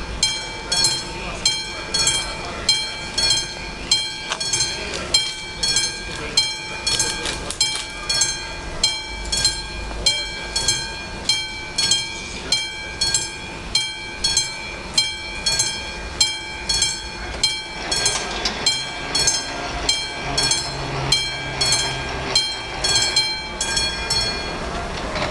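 Railway level-crossing warning bell ringing steadily, about three strikes every two seconds: the crossing's alarm that a train is approaching.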